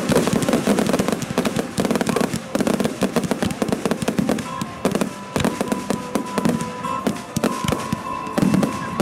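Dense fireworks barrage: rapid bangs and crackling from battery cakes and aerial shells bursting, with music playing underneath.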